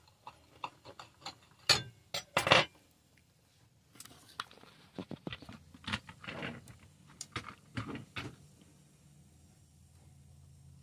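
A knife sawing through a crusty bread roll on a plate, making sharp crackly scrapes, then a cluster of knocks and clicks from the phone camera being handled, then a faint steady hum near the end.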